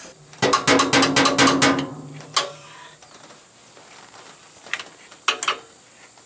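Hammer tapping metal on the cast-iron manifolds of a 1959 GMC engine, working to break the seized intake manifold free of the exhaust manifold. A quick run of about eight taps that ring with a low tone, then a single tap, then a few more near the end.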